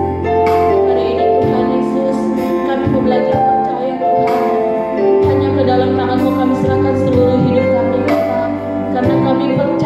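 A worship song: a woman sings a slow, held melody into a microphone over steady instrumental accompaniment.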